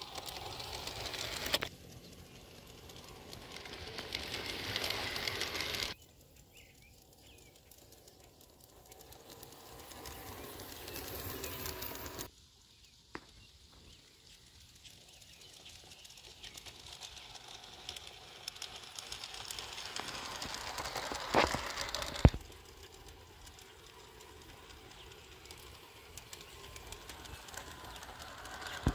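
LGB G-scale model steam locomotive running on garden track with a flat car: the rolling of its wheels and the hum of its electric motor swell several times as it comes closer, each time breaking off suddenly, with a few sharp clicks.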